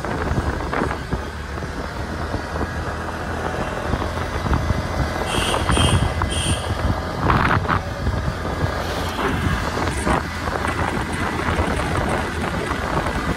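Road noise of a moving vehicle: a steady low rumble, with three short high beeps about five seconds in.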